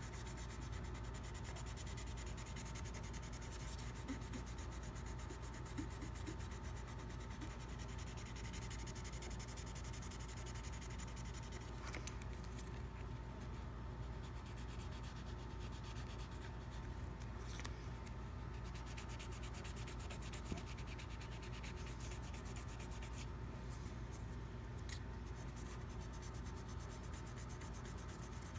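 Fine 600-grit sandpaper rubbed by hand over the bite area of a hard rubber mouthpiece, a faint, steady sanding, smoothing the edge between the repair material and the original rubber. A steady low hum sits underneath.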